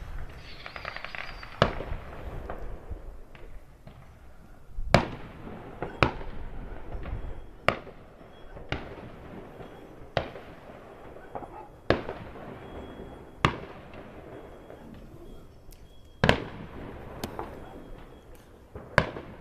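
Fireworks going off: sharp bangs at irregular intervals every second or two, each trailed by a rumbling echo.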